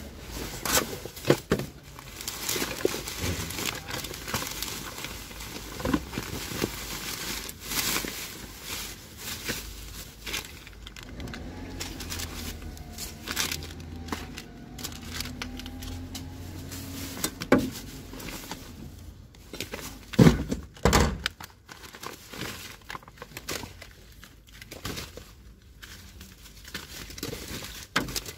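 Plastic bags, wrappers and clothing rustling and crinkling as gloved hands rummage through a rubbish container, in a run of irregular crackles with a couple of louder ones about twenty seconds in.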